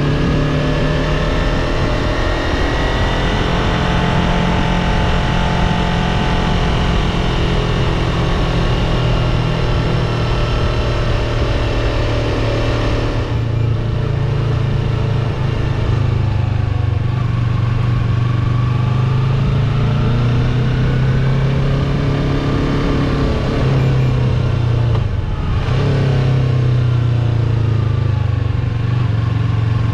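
Yamaha R3's parallel-twin engine running while the bike is ridden, its pitch rising and falling with the throttle and gear changes. The sound drops off sharply twice, about a third of the way in and again near the end, as the throttle closes.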